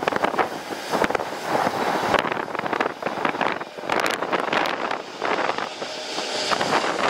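Strong gusting wind buffeting the microphone, mixed with the engine noise of a jet airliner.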